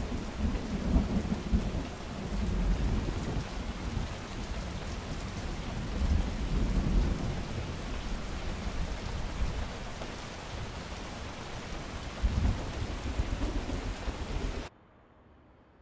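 Heavy rain with low rolling thunder that swells a few times. It cuts off suddenly about a second before the end, leaving near silence.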